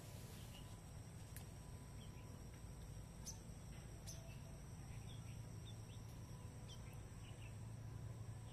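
Quiet rural ambience: a steady low hum with faint, scattered bird chirps and a few soft clicks.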